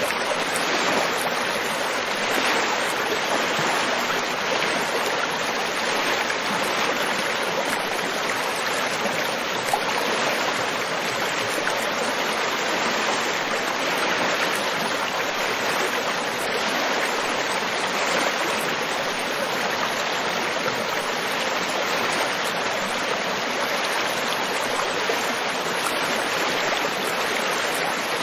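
River water flowing: a steady, even rush with no breaks.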